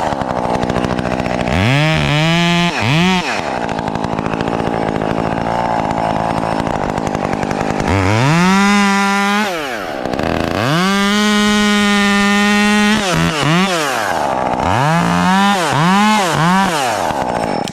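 Stihl chainsaw engine revved in a few quick blips, idling in between, then held at a steady high throttle in two runs of a couple of seconds each, followed by a string of quick throttle blips.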